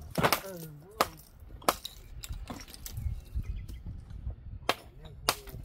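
Sharp clacks of stone knocking on stone while a dry-stone wall is built, about five strikes at irregular intervals.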